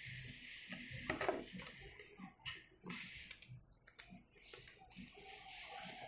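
Faint, irregular small clicks and light knocks from hands handling a metal skateboard truck against the wooden deck while seating it on its mounting bolts.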